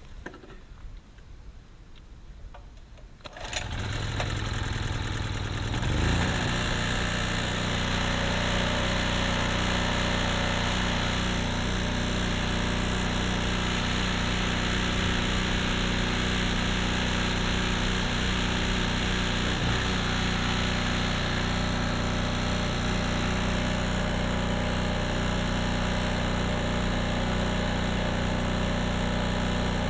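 Small portable generator engine starting about three and a half seconds in, then running steadily under load, powering a sump pump.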